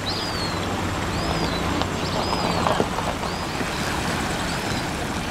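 A bird repeating a short, high, arched chirp a little more than once a second over a steady outdoor rush, with a low hum that fades out about halfway through.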